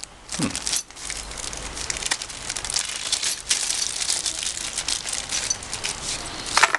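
Packaging being unwrapped and handled: a continuous, irregular crinkling and crackling, with a short squeak about half a second in.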